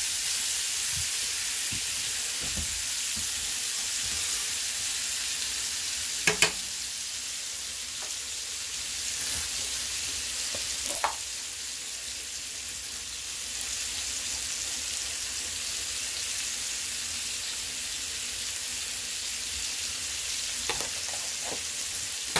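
Pork steaks sizzling in a frying pan on a wood-burning stove: a steady frying hiss, broken a few times by sharp metallic clicks of tongs against the pan.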